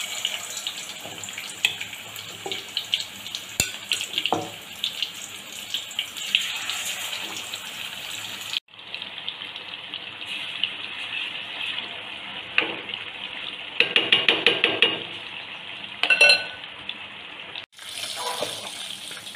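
Chicken pieces deep-frying in hot oil with curry leaves: a steady sizzling hiss full of small crackles, with a metal slotted spoon clinking against the aluminium pot now and then, in quick runs near the end. The sizzle cuts off abruptly twice.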